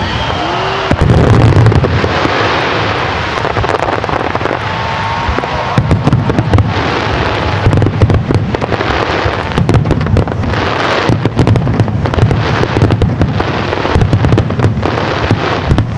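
Aerial fireworks show: dense, continuous crackling, with a deep boom from a bursting shell every second or two.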